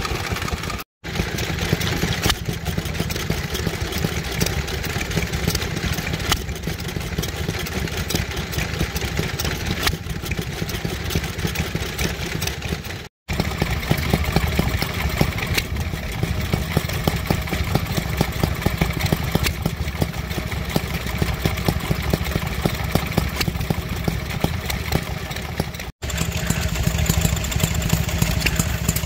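Small vintage stationary engines running steadily, a rapid exhaust beat with mechanical clatter. The sound drops out briefly twice as it cuts from one engine to the next.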